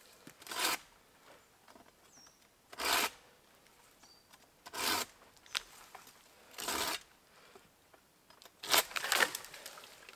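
Folding pruning saw cutting into a dead, dry branch: single rasping strokes about every two seconds, then a quicker, louder run of strokes near the end as the cut goes through.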